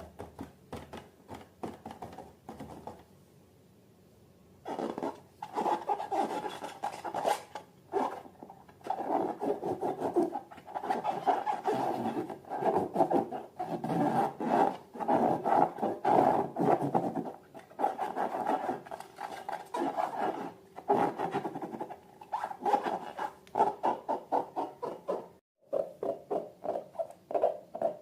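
Hands working slime and rubber balloons, making rapid, irregular squishing and rubbing sounds. A few soft clicks come first, and the sound thickens into a dense run about five seconds in.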